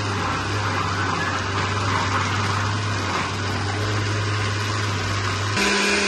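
Countertop blender running, puréeing cooked beans into a smooth paste. Its motor hum jumps to a higher, steadier pitch about five and a half seconds in.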